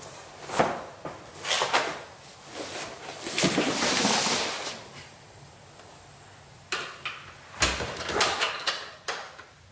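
A large cardboard box knocked and scraped as it is pushed over a doorway and slid across a floor, the longest slide about three and a half seconds in. Later a front door shuts with a heavy thump among a few sharp knocks.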